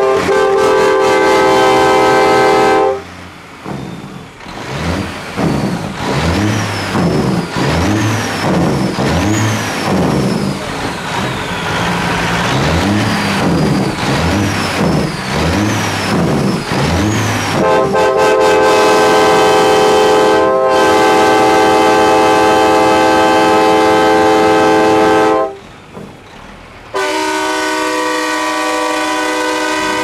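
Air train horns on a custom semi truck blowing a steady multi-note chord, then a diesel engine revved over and over, about once a second, puffing black smoke from the stacks, with a high whistle rising and falling with each rev. About 17 seconds in, the train horns blow again in one long blast, stop for a moment, and sound once more near the end.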